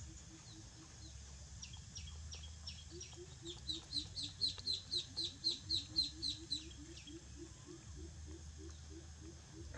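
A chicken clucking in a steady low rhythm, about three clucks a second, with a fast run of short high peeps from about three to seven seconds in.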